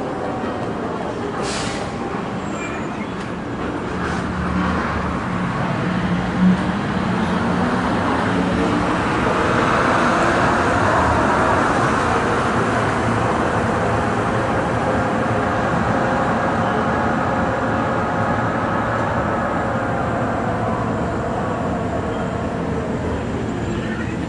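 Airport people-mover tram running after its doors close: the electric drive's whine rises steadily in pitch as it gathers speed over a constant rolling rumble, then levels off and sinks slowly as it slows. A single short knock sounds about six seconds in.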